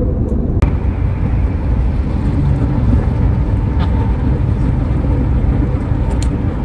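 Steady low road and engine rumble inside a moving car's cabin, with a single sharp click about half a second in.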